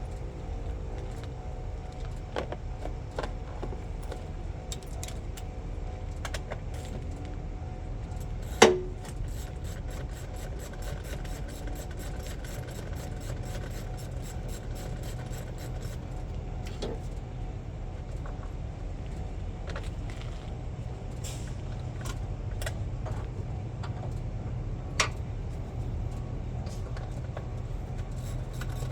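Wrench and socket work on truck battery terminal nuts: scattered metal clicks, a quick run of rapid even clicks, and a sharp metallic clank about nine seconds in and another near twenty-five seconds, over a steady low rumble.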